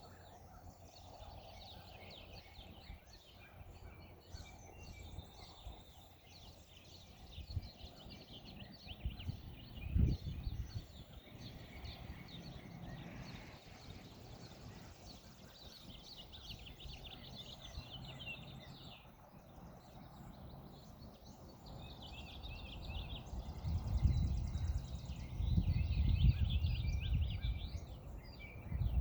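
Small birds chirping in rapid high twittering runs, with low rumbling bursts about ten seconds in and again near the end.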